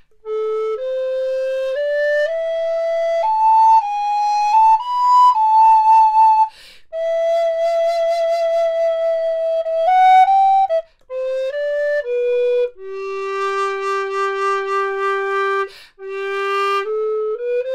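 Resin Ganassi alto recorder in G played solo: a slow melody of held notes that climbs step by step, holds a long note in the middle, then falls to a long held low note near the end, with two short breaks for breath.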